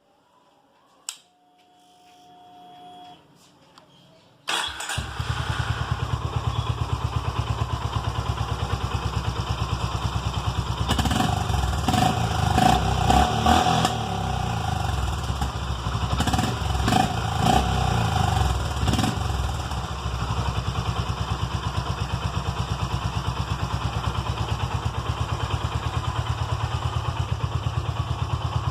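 Honda H'ness CB350's single-cylinder engine: a click and a faint whine, then it starts about four seconds in and settles into an even, thumping idle. It is then revved several times, with crackling pops from the exhaust on each blip, before dropping back to the steady thump of idle.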